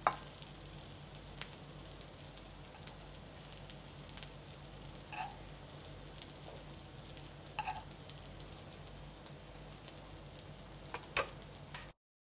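Steel spoon scraping and clinking against a kadai as bread egg masala is scooped into a bowl, with a few sharp knocks spaced several seconds apart. Under it, a faint steady sizzle of aloo tikki frying in oil.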